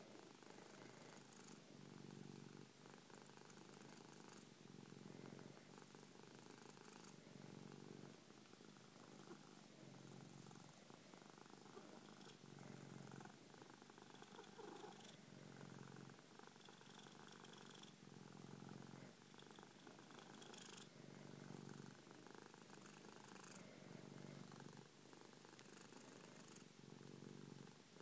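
Persian cat purring steadily, the purr swelling and easing with each breath about every two seconds.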